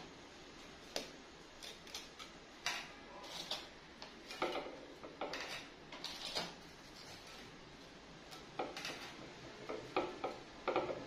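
Dry rusks being set down one by one in a glass baking dish: scattered light taps and clicks, with short scraping sounds as the pieces are pushed into place.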